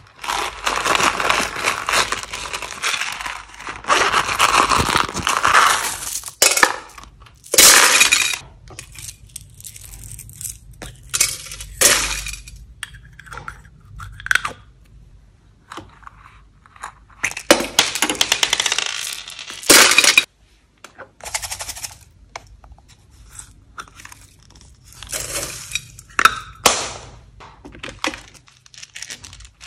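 Hard plastic toy cases handled and clicked open by hand, knocking against each other in a clear bowl: irregular clacks, clicks and crackling, scraping rustles, with the densest handling noise in the first several seconds and again past halfway.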